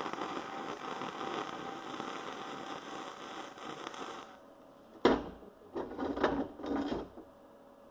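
Electric welding arc on steel bar stock, a steady crackle for about four seconds that cuts off as the weld stops. This is followed by a few sharp, loud knocks and clanks.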